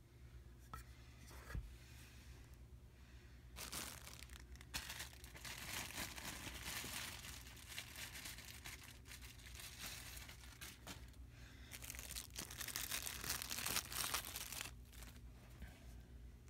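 Clear plastic packaging bags crinkling and tearing as they are handled and pulled open, starting about three and a half seconds in and stopping shortly before the end, after a few light clicks.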